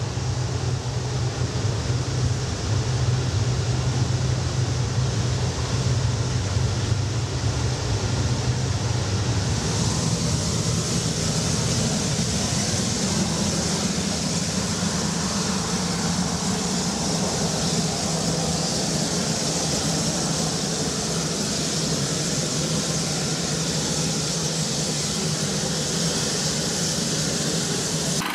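Flame burners under a slow-moving rail wagon heating the rails: a steady rushing of flame over the low rumble of the wagon on the track. About ten seconds in, the rumble fades back and a brighter hiss takes over.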